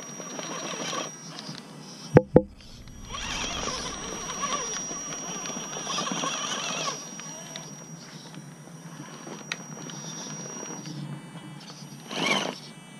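Gmade GOM RC rock crawler's electric motor and geared drivetrain whirring in surges as it crawls over rocks, with a steady high whine underneath. Two sharp knocks come a little after two seconds in, and a short surge comes near the end.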